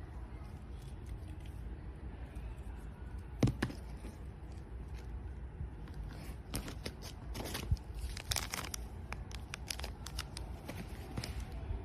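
Packaging being torn and crinkled: irregular rips and crackles, starting about three seconds in and coming thick and fast through the second half, over a steady low hum.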